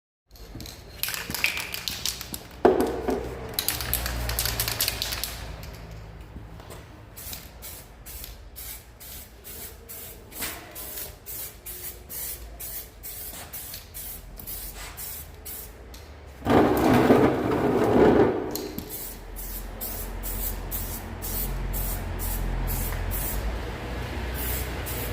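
Aerosol spray-paint can hissing in short repeated bursts as paint is sprayed onto scooter plastic panels, with a louder, longer spell of noise about two-thirds of the way through.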